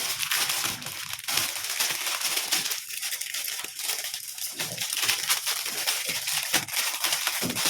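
Plastic packaging crinkling and rustling as an apple-shaped pop-it fidget toy is unwrapped by hand: a continuous irregular crackle.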